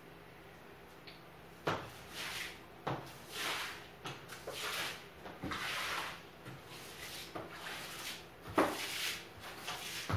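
A mop swishing back and forth across a hard floor in repeated strokes, with a few sharp knocks, the loudest near the end.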